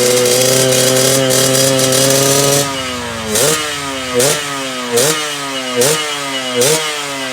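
Yamaha RX-King two-stroke single-cylinder engine held at a steady raised rev, then, a little under three seconds in, dropping back and blipped over and over, about once every 0.8 s, each blip a quick rise in pitch that sags away. This is the rough 'ngorok' sound.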